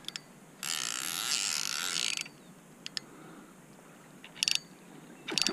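Fishing reel ratcheting in short runs: one run of about a second and a half, then two brief runs near the end, with a few light clicks between.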